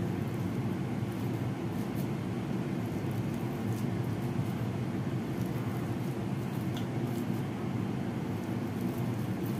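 A steady low rumbling noise that stays at an even level, with a few faint light clicks.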